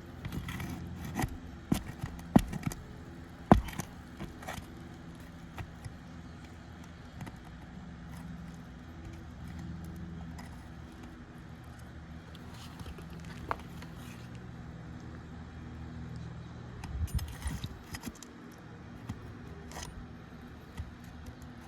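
Metal hand tool clinking and scraping against roofing nails and asphalt shingles as nails are worked loose: a run of sharp clinks in the first few seconds, a few more later, and another cluster near the end, over a steady low hum.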